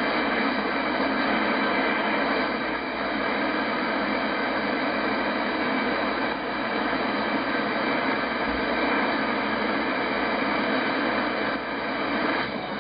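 Steady static hiss from a Yaesu FTdx10 shortwave transceiver's speaker as its dial is turned across the 19-metre band between stations in AM mode.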